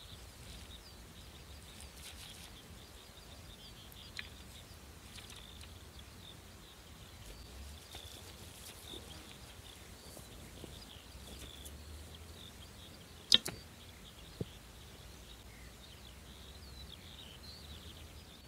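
Birds chirping over a low wind rumble. About thirteen seconds in, one sharp snap of a Grozer Assyrian biocomposite bow being shot, followed by a fainter knock about a second later.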